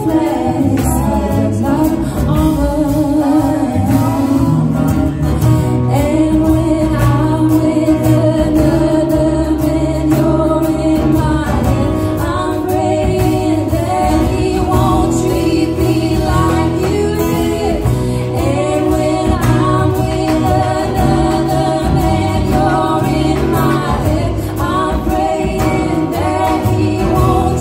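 Live band performing a song: a woman singing lead with backing singers joining in, over upright double bass and guitar.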